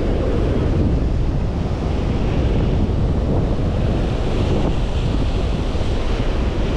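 Wind buffeting the microphone over the steady wash of small surf breaking and running up the sand.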